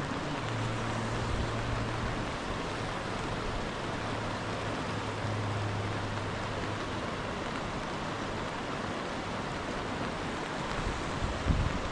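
Steady hiss of rushing water, with a low steady hum from about half a second in to about seven seconds, and a short knock near the end.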